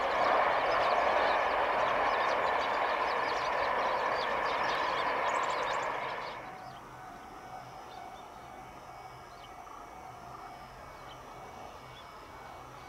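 Tobu 100 series Spacia limited-express electric train running past, a loud steady rush of wheel-on-rail noise that drops away sharply about six seconds in, leaving only a faint background hum.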